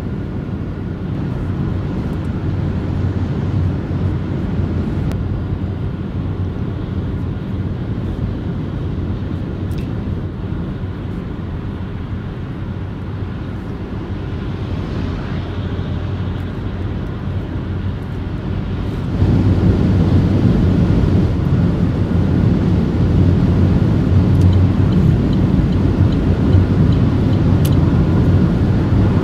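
Opel Mokka-e electric car driving at speed: a steady low rumble of tyre and road noise with wind noise and hardly any motor sound. About two-thirds of the way through it steps up suddenly to a louder, harsher rumble and stays there.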